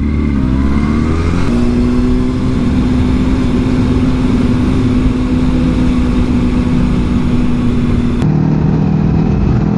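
Motorcycle engine pulling up through the revs for about a second and a half, then running at a steady pitch. Near the end its note drops to a lower steady pitch.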